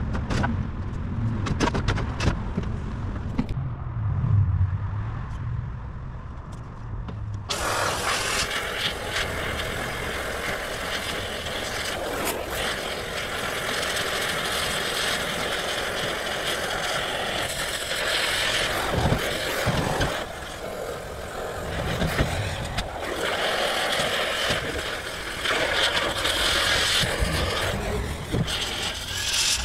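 Rollback tow truck's bed hydraulics and winch at work loading a car onto the steel flatbed. A low engine rumble comes first; about seven seconds in a loud, steady rushing hiss starts and keeps on, with a few clanks and scrapes.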